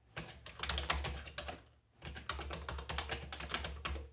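Rapid typing on an original Commodore 64's keyboard, a dense run of key clicks. It breaks off briefly about halfway and then starts again.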